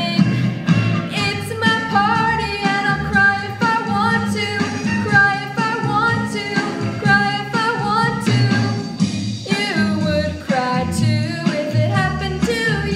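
A woman singing a pop song into a microphone over instrumental accompaniment with a steady bass line.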